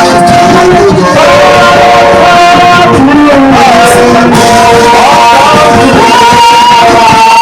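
Music with a male voice singing over a plucked-string backing, likely guitar.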